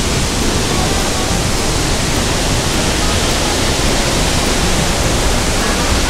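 A large waterfall of about 100 metres' free fall, rushing steadily as an even, unbroken noise.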